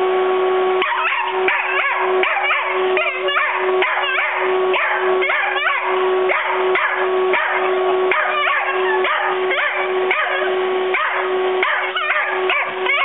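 A puppy yipping and whining again and again as it bites and tugs at a vacuum cleaner hose, over the steady hum of the running vacuum cleaner.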